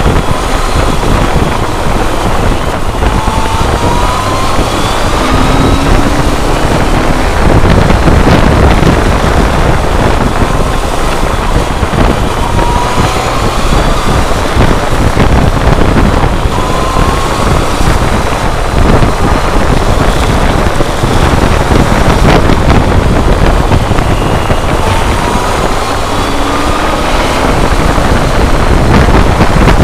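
Heavy wind noise on the camera's microphone over the BMW K1200R Sport's inline-four engine running at road speed. A rising engine note comes through a few times.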